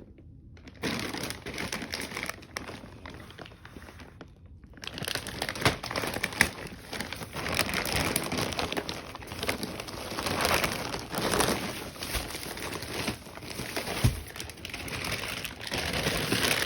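A shipping parcel being opened and unwrapped by hand, with its paper and plastic packing crinkling and rustling. There is a short pause about four seconds in, then steadier, louder rustling.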